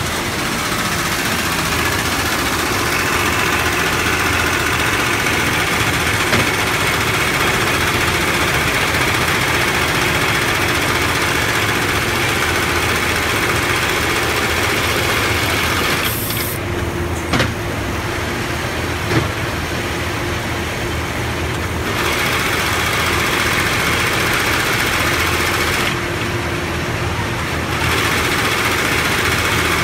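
Automatic long-arm FIBC loop-attaching industrial sewing machine running, a steady mechanical din of stitching. The higher part of the noise drops away twice, for several seconds around the middle and briefly near the end, with a couple of sharp clicks in the middle.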